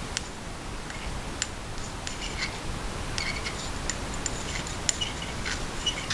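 Small clicks and light metallic taps from the parts of a Tangram Vector button-lock folding knife being handled during reassembly, as the blade is oiled and fitted onto its pivot and washers. The ticks come scattered and grow busier in the second half, over a steady hiss.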